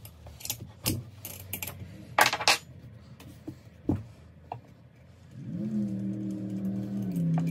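Light metallic clinks and taps as turbocharger parts are handled on a workbench. About five seconds in, a steady low hum with several overtones rises in and holds.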